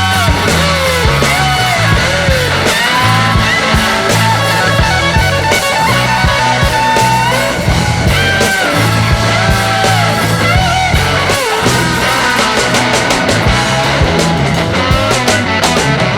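Rock music with electric guitar over a steady bass line.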